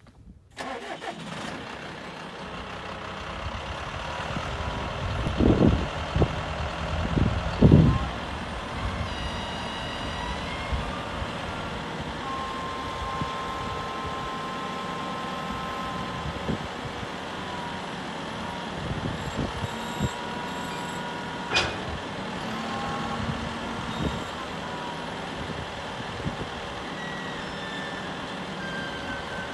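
John Deere 6130R tractor's diesel engine running steadily while its front loader raises the bucket. A few loud low thumps and surges come about five to eight seconds in. Short beeps and a held tone follow a little later.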